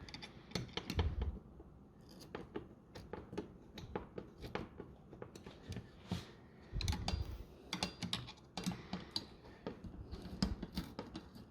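Irregular small clicks, taps and scrapes of metal and plastic hardware as a CPU cooler is seated on the motherboard and its mounting screws are turned in.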